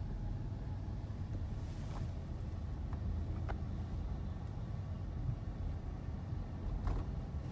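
A car's engine and tyres at low speed, heard from inside the cabin as a steady low rumble, with a few faint clicks.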